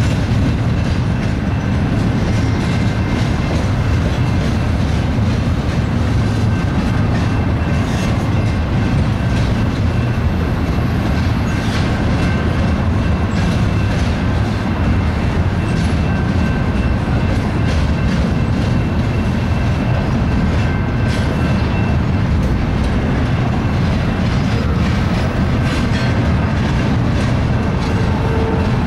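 Double-stack intermodal train's loaded well cars rolling past: a steady, loud wheel-and-rail rumble with scattered clicks of wheels over rail joints and a faint, steady high-pitched whine above it.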